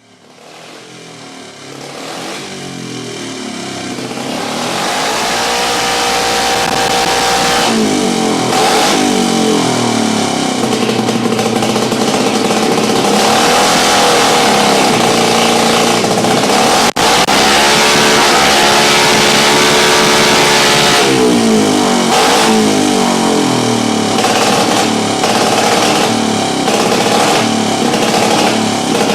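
Single-cylinder race engine running on a dyno during break-in. It grows louder over the first few seconds, then is revved up and down again and again, with a brief cut-out about two-thirds of the way through.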